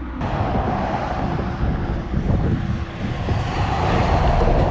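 Steady rush of highway traffic, tyres and engines going by, starting abruptly and growing a little louder near the end.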